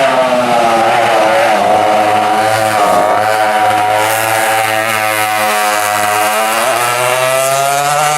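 Twin U.S. Motor Power 820 (West Bend-style) two-stroke kart engines running hard on track. The engine pitch drops and climbs again twice, about three seconds in and near seven seconds, as the kart backs off and accelerates.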